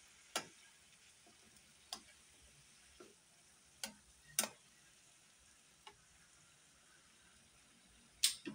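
A metal spatula clinking against the rim and base of a frying pan while stirring, about seven irregular clinks with the loudest near the end, over a faint sizzle from the simmering corned beef and chayote.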